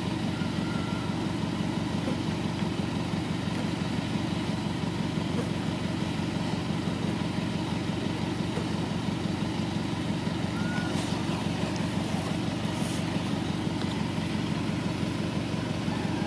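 A steady low drone from an idling engine that never changes in pitch or level, with no barking heard.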